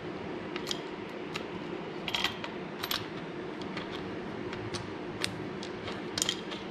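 Small metal clicks and clinks of a washer and nut being handled and threaded by hand onto a transmission-mount bolt, coming in scattered bunches over a steady low hum.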